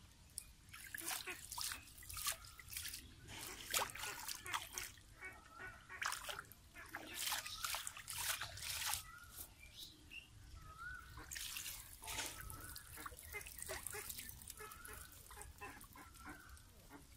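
Shallow muddy water splashing and trickling in irregular bursts as hands work through a split-bamboo fish trap and lift it out dripping.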